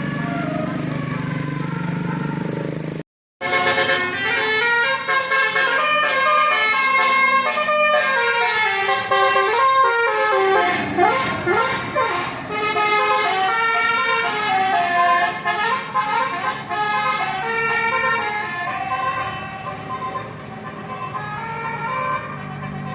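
A vehicle's basuri musical air horn playing a tune of quickly changing notes, some sliding up and down. There is a steady pitched hum for the first few seconds, then a brief break.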